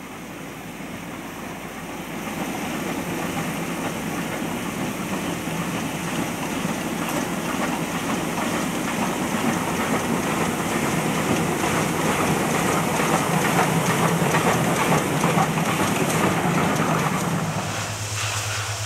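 Garratt steam locomotive hauling a passenger train past, its working exhaust mixed with the clatter of the coaches on the rails. It grows louder after about two seconds and drops away near the end.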